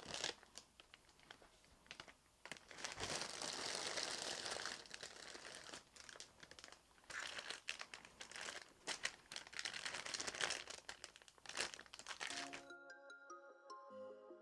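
Plastic bags of model kit parts crinkling and rustling as they are lifted out of the box and handled, with irregular sharp crackles. About twelve seconds in, the rustling cuts off and electronic background music begins.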